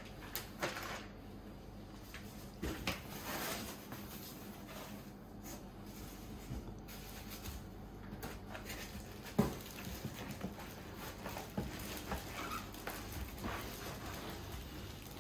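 Plastic packaging wrap rustling and crinkling as plastic-wrapped chair parts are handled in a cardboard box, with scattered light knocks and one sharper knock about nine seconds in.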